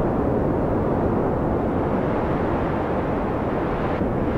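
Steady low rumble of wind in a snowstorm, an even blizzard ambience with no distinct events.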